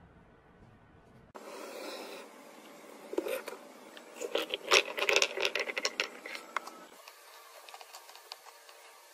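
Small hard plastic toy pieces clicking, rattling and scraping against each other and the table, with a dense run of clicks in the middle.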